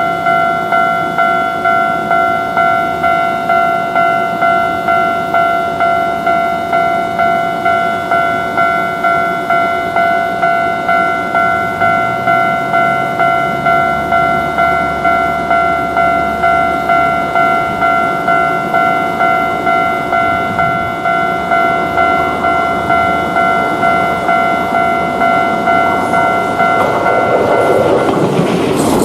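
Japanese railroad crossing's electronic warning bell ringing steadily, a ringing tone struck about twice a second. Near the end a train's running noise grows loud over it as the train reaches the crossing.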